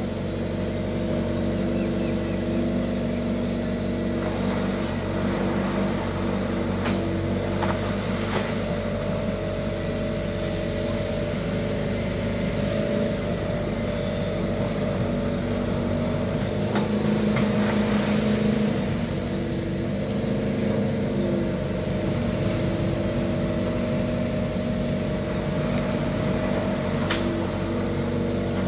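Kato HD450 long-reach excavator's diesel engine running steadily and fairly quietly as the boom digs and swings, its note shifting a little with the hydraulic load, with a few brief knocks from the working bucket and arm.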